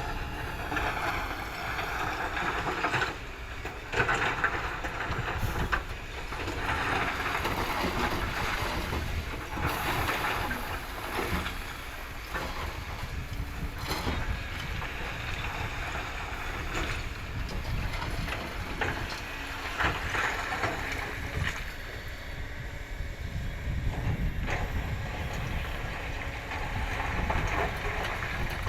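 Kobelco excavator's diesel engine running under load, rising and easing as it works, with a few sharp knocks along the way.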